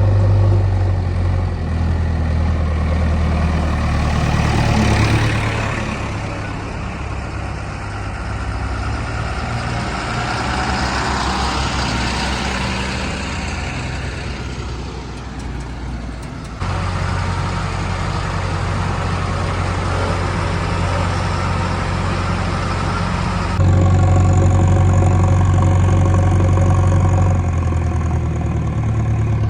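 JCB 3DX backhoe loader's diesel engine running, its pitch rising and falling as it works. The sound changes abruptly about 17 and 24 seconds in.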